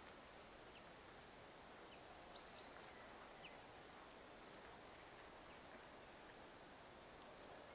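Near silence: faint forest ambience with a few short, faint bird chirps scattered through it.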